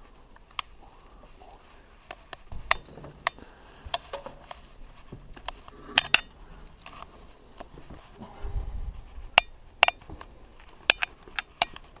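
Cloth motorcycle cover being pulled off the bike, the fabric rustling, with a handful of sharp clicks and knocks scattered through it and a brief low rumble near the end.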